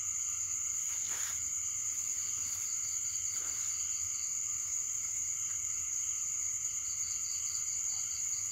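Night chorus of frogs and insects calling, with a steady high-pitched trill throughout and a pulsing call joining near the end. Faint rustles of a plastic sack being handled come through a couple of times.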